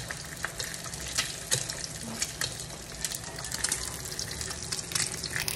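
Food frying in hot oil in a pan: a steady sizzle with many small, irregular crackles and pops.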